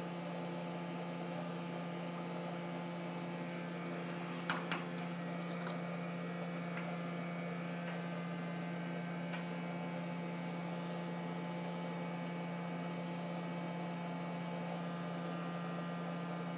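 Steady electrical hum from the workbench equipment, with two faint clicks about four and a half seconds in.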